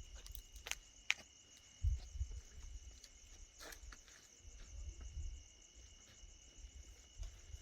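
Steady high-pitched insect chorus, with a few sharp clicks and low rumbles coming and going underneath.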